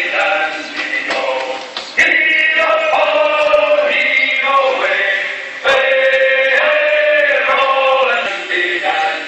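Male voices singing a sea shanty in chorus as music over the footage, with two sharp accents about two and six seconds in.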